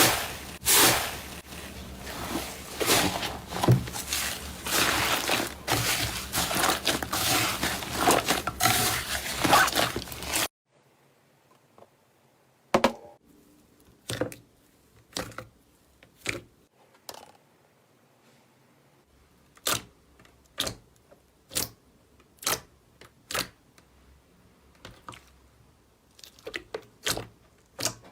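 Slime being squished and worked by hand, making dense crackling pops. About ten seconds in, the sound cuts off suddenly. After that come separate, quieter pops roughly once a second.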